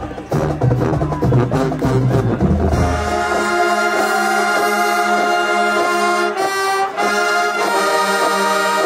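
Music: a bass-heavy beat that switches, about three seconds in, to held chords on brass-like instruments with little bass.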